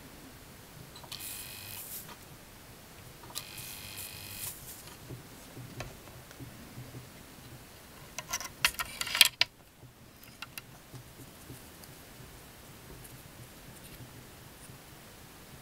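Resistance soldering on a copper-clad strip joint: two short hissing bursts, then about eight seconds in a louder crackle lasting about a second that cuts off sharply.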